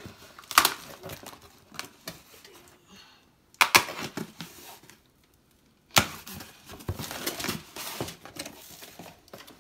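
Cardboard shipping box being opened by hand: three sharp rips of packing tape and cardboard, about half a second in, near four seconds and at six seconds, with rustling and scraping of cardboard flaps in between.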